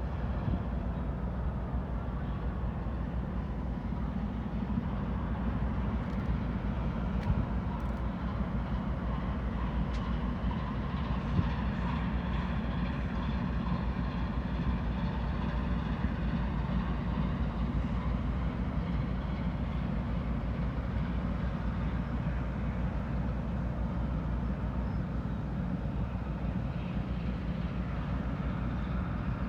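Car ferry's diesel engines running with a steady low rumble as the ship gets under way, with a fainter whining tone that shifts in pitch around the middle.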